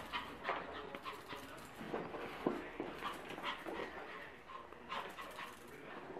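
A dog making short, repeated vocal sounds, a few a second and uneven in spacing, while play-fighting with a cat.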